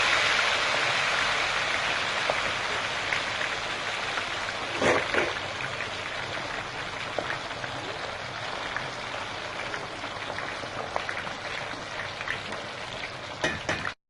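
A whole steam-cooked chicken deep-frying in hot oil: a dense sizzle with scattered crackles, loudest just after it goes in and gradually settling, with a burst of louder pops about five seconds in.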